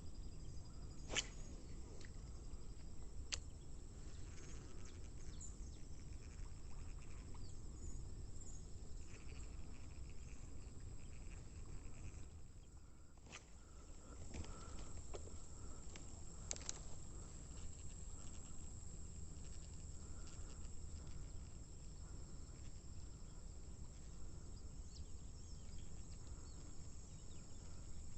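Outdoor lakeside ambience: insects chirping steadily over a low rumble of wind or handling noise, with a few sharp clicks scattered through it.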